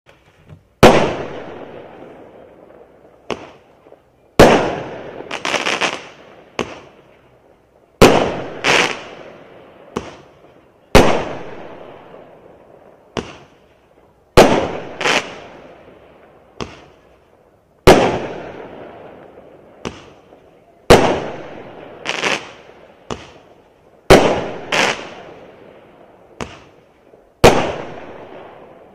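A 0.8-inch, 15-shot Roman candle firing its shots one by one: a sharp bang every three to four seconds, each dying away in a long echoing tail. Many bangs are followed about a second later by a smaller pop or crack as the star bursts in the air.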